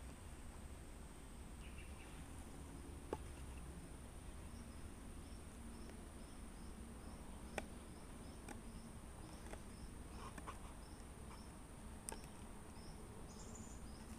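Folding knife whittling a wooden stick, a few short sharp clicks as the blade cuts. Behind it runs a steady high-pitched insect drone, and from about four seconds in a regular chirping about twice a second.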